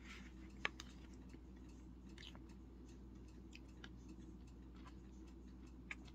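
Near silence of someone eating cottage cheese from a spoon: faint chewing and soft mouth sounds, with a few light clicks of the spoon, the sharpest about half a second in and another near the end, over a low steady hum.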